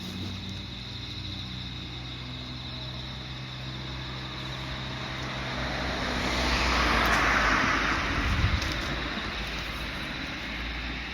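A road vehicle, likely a car, passing by: its tyre and engine noise swells to a peak about seven seconds in, then fades away, over a low steady hum.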